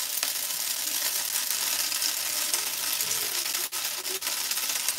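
Pasta sizzling steadily in a hot frying pan as a thick blended courgette sauce is poured over it.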